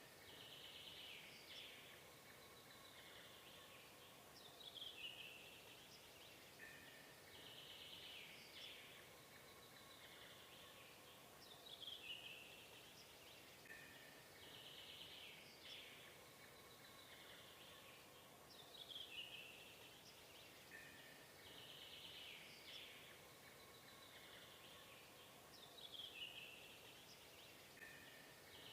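Faint birdsong: high chirps and falling whistles in a short pattern that repeats almost identically about every seven seconds, like a looped ambience track.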